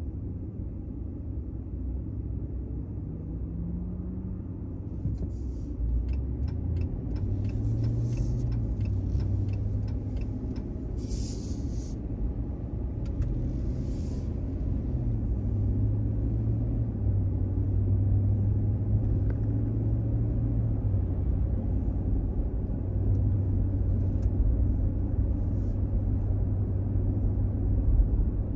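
Car engine and road rumble heard from inside the cabin as the car pulls away from a standstill. The engine note climbs and drops back several times as it gets under way, with a few short hissing sounds in the first half.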